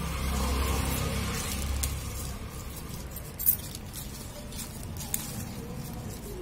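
Glass bangles clinking and leaves rustling as a hand plucks Malabar spinach leaves off a climbing vine. A few sharp clicks, the loudest about three and a half seconds in. A low rumble in the first two seconds.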